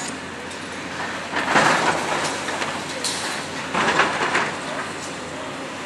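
Hydraulic excavator running while it works a pile of demolition rubble. Broken concrete crashes and scrapes twice, about a second and a half in and again about four seconds in.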